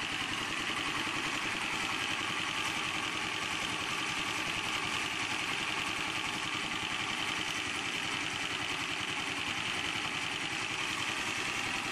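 Honda GX240 8 hp single-cylinder engine running steadily on gasoline, its hydrogen cells switched off.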